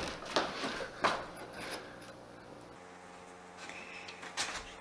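Faint handling noise: a few scattered clicks and rustles of small objects being picked up and handled. A faint steady hum comes in about three seconds in.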